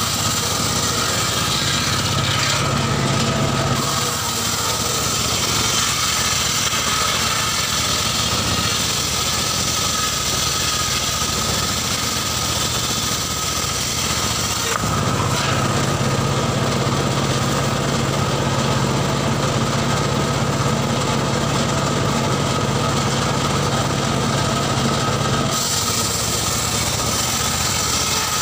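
Homemade engine-driven circular saw bench running, the engine droning steadily under a constant whine. Its sound shifts a few times, about four, fifteen and twenty-five seconds in.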